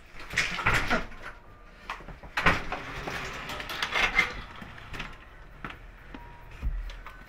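A door being opened and handled, with scuffs and rustles of someone moving through it; the knocks and scrapes come in clusters during the first four seconds, then settle.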